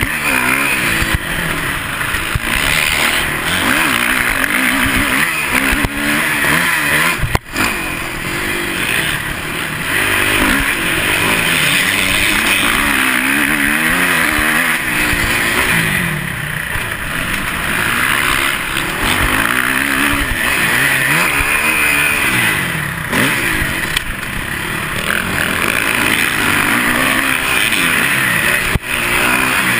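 Suzuki dirt bike engine ridden hard, close to an onboard camera, its pitch rising and falling over and over as the rider opens and closes the throttle through the track. The sound drops out very briefly about seven seconds in.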